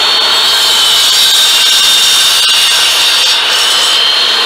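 Bosch miter saw running at full speed with its blade cutting through a thick bamboo pole: a loud, steady high-pitched whine over rough cutting noise.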